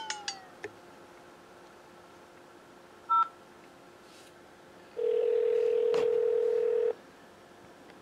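A single short telephone keypad beep about three seconds in, then a steady ringback tone for about two seconds over the phone line as the call is put through from the automated menu to a Walmart associate.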